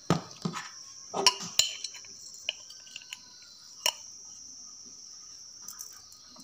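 A few sharp clicks and taps of a small spoon and spice container against a bowl, closest together in the first two seconds and loudest about a second in. Under them is a steady high-pitched insect drone.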